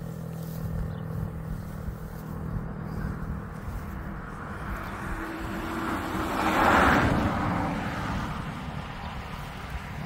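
STL-10 outdoor warning siren sounding during its test run, its level swelling to a peak about seven seconds in and then easing off, over a low steady hum.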